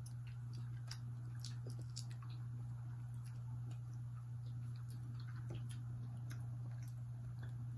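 Soft chewing of sticky mochi ice cream, with many small scattered mouth clicks, over a steady low hum.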